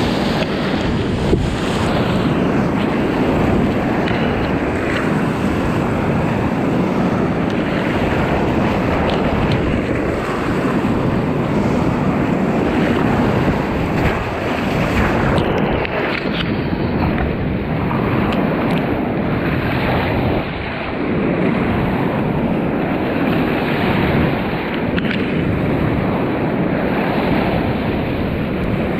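Rushing water around a kayak, with spray hitting the camera and wind noise on the microphone: a steady, loud rush.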